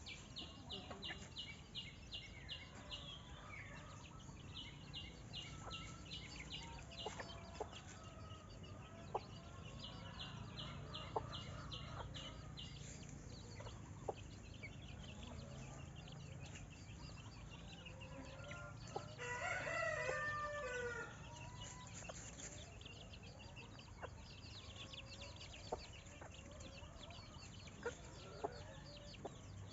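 Farmyard chickens clucking, with a rooster crowing once, the loudest sound, about two-thirds of the way through. Three short bursts of a fast, high trill come early on, over a steady low hum.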